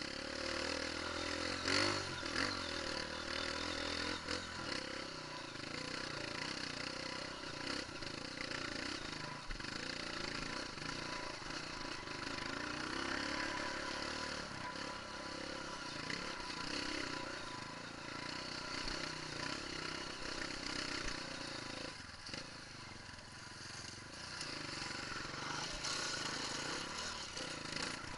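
Single-cylinder Honda CRF dirt bike engine running steadily under way up a rough dirt trail, heard from a camera mounted on the bike.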